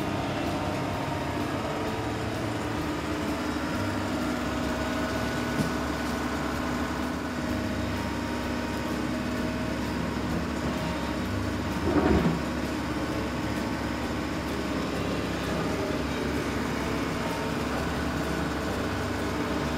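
Heavy-machinery engine sound running steadily, an added excavator sound effect for a hand-worked toy excavator digging soil. There is a brief louder surge about twelve seconds in.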